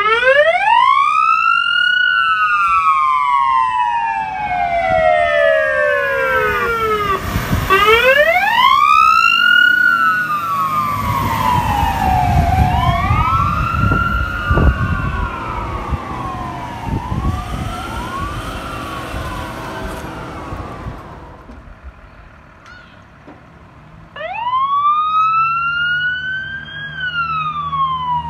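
Fire engine siren wailing in slow rising and falling sweeps, with the truck's engine rumbling as it passes. The wail fades away, and after a short lull a second siren starts up, rising and falling again.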